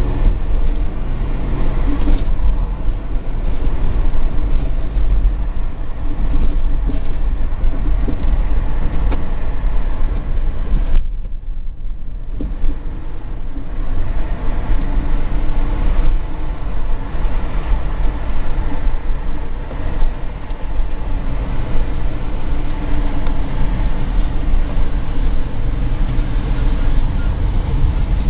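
Steady low rumble of a car driving in traffic, heard from inside the cabin: engine and tyre noise, briefly dropping quieter about eleven seconds in.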